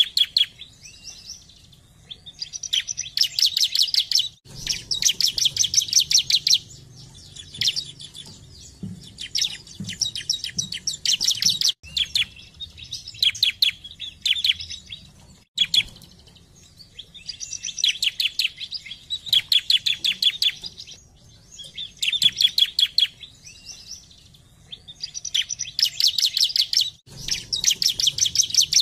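Bar-winged prinia (ciblek) singing: phrases of rapid, sharp, high ticking notes, each a second or two long, repeated every few seconds.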